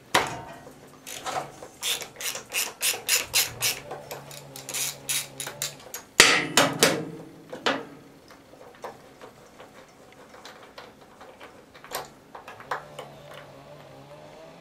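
Socket ratchet clicking in quick, even strokes, about three or four a second, as a 13/16 spark plug is unscrewed from a small engine, then a louder clatter about six seconds in and a few scattered clicks and handling taps.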